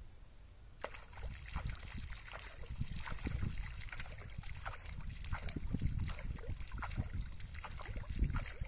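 Shallow pond water splashing and sloshing in irregular bursts as a hand throws water and a fishing net is hauled in. It starts a little under a second in.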